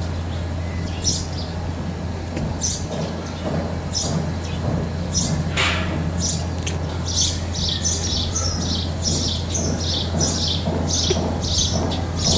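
Short high-pitched chirping calls, a few at first and then about two a second from around halfway through, over a steady low hum.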